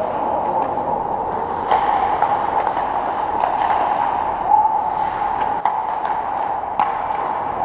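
Ice hockey play at the rink: a steady rink hum with skates scraping on the ice, broken by a few sharp clacks of sticks and puck.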